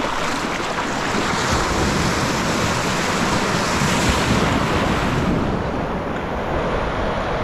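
Ocean surf washing and breaking in the shallows, with wind rumbling on the microphone.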